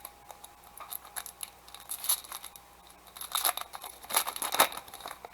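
Crinkling and rustling of a trading-card pack wrapper and cards being handled: a string of short crackles, loudest about two, three and a half and four and a half seconds in.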